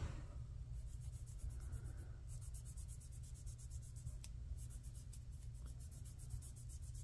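Quiet, steady low hum with a faint, fast, even ticking over it, and a single light click about four seconds in.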